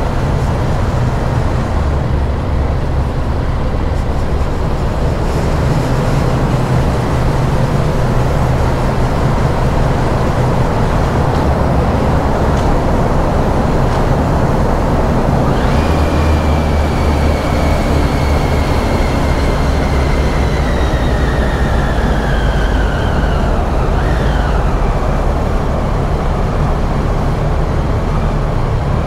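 Motorcycle riding slowly through a road tunnel: a steady low engine and road rumble. Past the halfway point a high whine slowly falls in pitch, then drops away quickly about two-thirds through.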